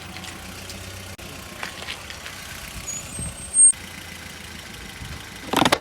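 A vehicle engine idling steadily. A short, sharp sound comes about three and a half seconds in, and a louder burst of noise comes near the end.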